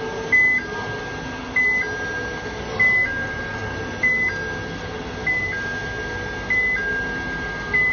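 Forklift warning alarm sounding while it drives: a short higher beep followed by a longer lower tone, repeating about once every second and a quarter, over the steady hum of the running machine.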